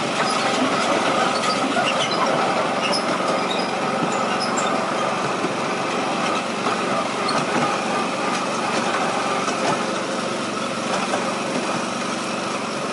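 7¼-inch gauge miniature railway locomotive's small engine running steadily, hauling the train along, with the wheels rolling on the track.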